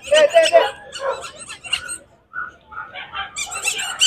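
Dogs barking in a run of short bursts, with a brief lull about two seconds in and then a denser burst of barks.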